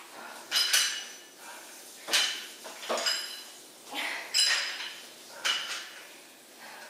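Metal clinks from a plate-loaded dumbbell as it is swung up and down in repeated reps. The plates knock together with a short ringing sound roughly once every second or so.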